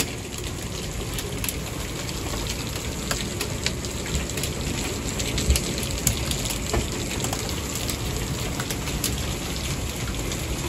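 Heavy rain mixed with hail pelting a wooden deck: a steady hiss of downpour with many sharp ticks of hailstones striking and bouncing.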